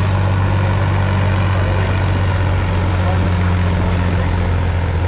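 Tractor engine running loudly at a steady, unchanging speed, a deep constant hum with mechanical noise over it.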